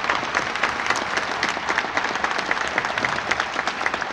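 Large audience applauding: dense, steady clapping of many hands.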